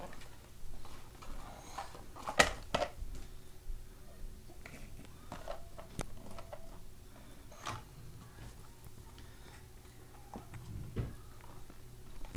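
A small cardboard box of bandages being handled and knocked about by a baby, giving scattered light taps and rattles, the loudest about two and a half seconds in. A faint steady hum lies underneath.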